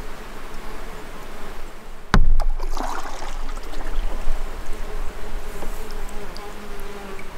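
Canoe paddling on calm water: the paddle dips and swishes, with one sharp knock about two seconds in as it strikes the canoe, then a short splash. An insect buzzes steadily near the canoe.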